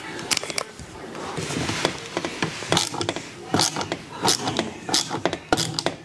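Screwdriver driving a screw that fastens the dishwasher's water inlet valve to its sheet-metal bracket: a string of irregular metal clicks and scraping.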